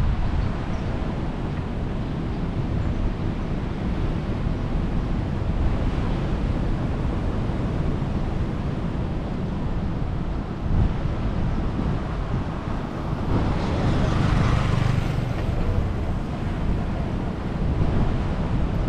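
Wind buffeting the microphone over a steady low rumble, with a louder swell of noise about two-thirds of the way through.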